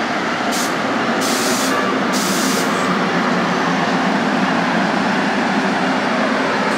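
NJ Transit passenger train rolling past on the near track: a steady rumble of wheels on rail, with three short bursts of hiss in the first three seconds.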